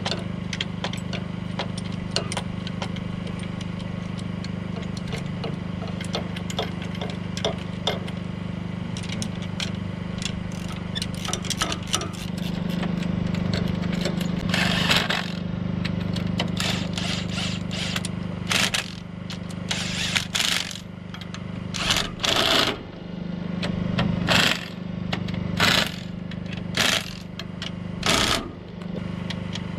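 Light clicking of a hand wrench starting the bolts, then a cordless impact wrench rattling in about ten short bursts through the second half as it runs down the mounting bolts of a new alternator. A steady low hum runs underneath.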